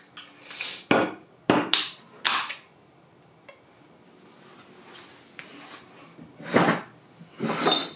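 Several sharp knocks and clatters of things being handled and set down on a wooden dining table, bunched in the first couple of seconds and again near the end, with soft rustling in between.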